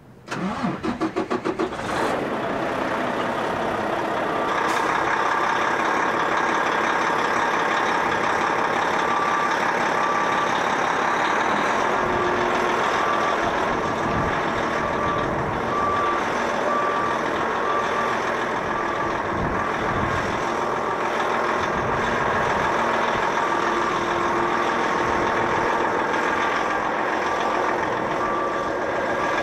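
Mack Trident 535 tip truck's diesel engine running as the truck manoeuvres, with a rapid pulsing in the first couple of seconds. Its reversing beeper sounds a steady high beep over and over from about a third of the way in, pauses, and beeps again near the end.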